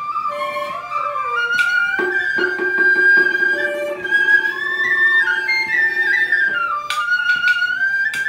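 Vietnamese bamboo transverse flute (sáo trúc) playing a slow pentatonic melody, with a two-string fiddle (đàn nhị) holding a long lower note through the middle and a few plucked zither notes.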